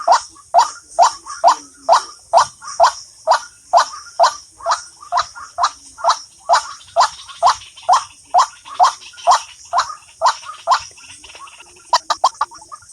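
A bird call played from a mobile phone as a trapping lure, repeating a short falling note about twice a second. After a brief lull near the end it breaks into a quicker run of notes.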